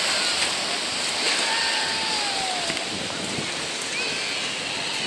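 Small waves breaking and washing over a sandy shore, a steady rushing hiss, with faint distant voices of beachgoers calling over it.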